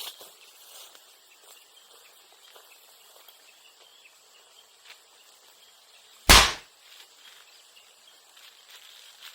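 A bamboo culm bursting in a bonfire: one loud, sharp bang about six seconds in, dying away quickly. It is the heated air and steam sealed inside a bamboo node blowing it open. A faint steady outdoor background lies underneath.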